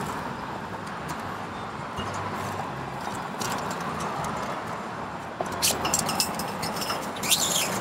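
Magnet-fishing rope being hauled up hand over hand over a metal bridge railing, against steady road-traffic noise. A run of sharp clicks and clinks comes near the end as the magnet and its catch come up against the railing.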